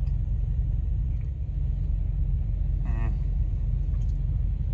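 Steady low rumble of an idling truck engine. A brief wavering hum of a man's voice comes about three seconds in.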